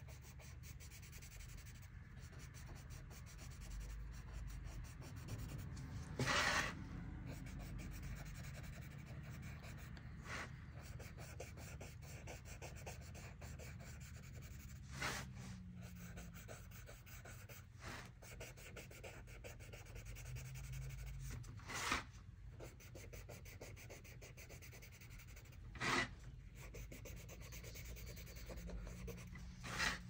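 Paper blending stump rubbing over graphite on sketch paper, a faint steady scratchy rubbing as the shading is worked out. Five short, louder scuffs break in at intervals.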